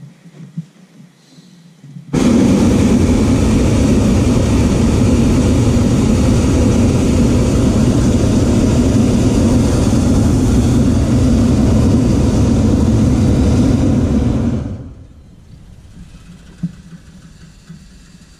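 Hot-air balloon's propane burner firing, loud and steady, starting abruptly about two seconds in and stopping after about twelve seconds.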